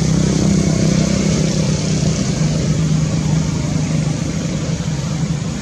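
A motor vehicle engine running steadily, a constant low hum.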